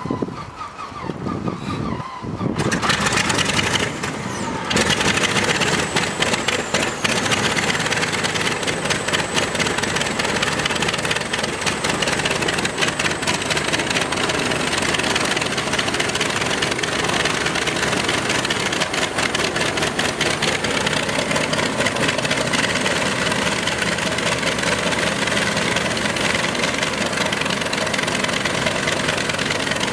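North American P-64's Wright R-1820 Cyclone nine-cylinder radial engine cold-starting: turning over unevenly at first, catching about two and a half seconds in, stumbling briefly, then running steadily with a rapid firing beat.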